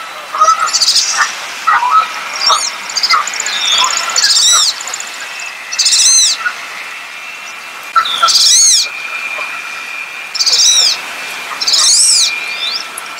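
Wood duck calling: thin, high whistles that rise and fall, repeated about seven times at intervals of one and a half to two seconds, with softer, lower calls in the first few seconds.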